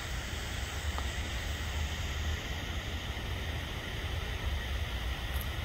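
Wind buffeting the microphone: an uneven low rumble under a steady even hiss, with no distinct events.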